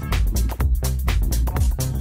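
Background music: an electronic dance track with a steady beat and heavy bass.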